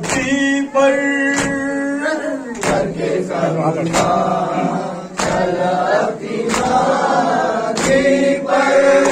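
A man leading a noha, a Shia mourning lament for Muharram, holding a long sung note, then a group of mourners chanting the response with him. Sharp claps of chest-beating (matam) keep time about once every 1.3 seconds.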